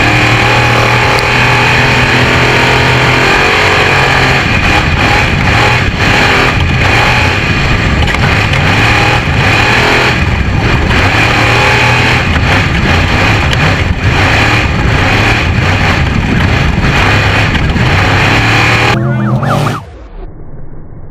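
Off-road race vehicle engine running loud and continuously. The sound drops off sharply near the end.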